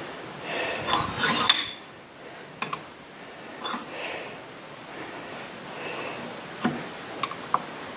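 A few light metallic clinks and ticks as a thin spoon-metal arrowhead is handled and shifted in a steel bench vise. The loudest comes about a second and a half in, with a brief ring. Soft rustling of hands is heard between them.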